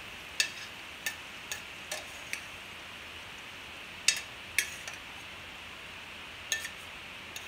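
Metal spoon clinking against the rims of a frying pan and an enamel pot as fried beetroot and vegetables in oil are spooned across: sharp clicks, five in the first couple of seconds, then two about four seconds in and two near the end. Underneath, a steady faint sizzle of hot oil.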